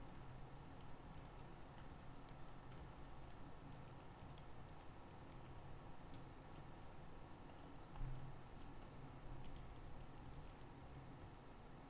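Faint computer keyboard typing, scattered quick key clicks, over a low steady hum, with one soft low thump about two-thirds of the way through.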